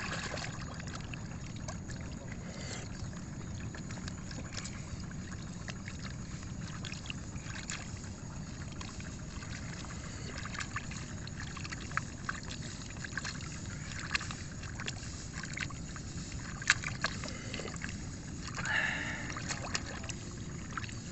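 Rice seedlings being pulled by hand from the waterlogged mud of a flooded nursery bed: mud and water sloshing and squelching over a steady low rumble. There are scattered small clicks, a sharper click about seventeen seconds in, and a short louder noise near the end.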